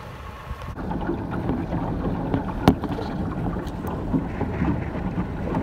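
Twin Yamaha 200 outboard engines running just after being started, then the RIB motoring slowly under them, with wind on the microphone. One sharp knock about two and a half seconds in.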